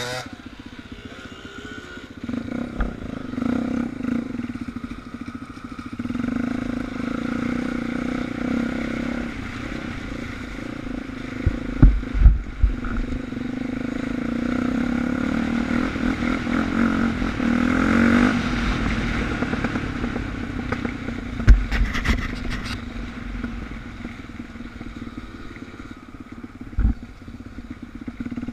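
Suzuki DR350's single-cylinder four-stroke engine running under way, heard from the bike's own mounted camera, its pitch rising and falling with the throttle. A few sharp thuds cut through near the middle and toward the end.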